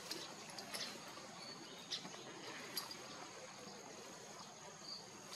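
Outdoor ambience: a steady, high-pitched insect drone, with a few short clicks and chirps scattered over it.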